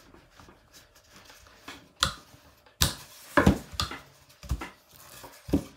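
Wrap dough being rolled out with a plastic bottle as a rolling pin on an oilcloth-covered table: irregular knocks and thumps of the bottle against the table, starting about two seconds in after a few light ticks.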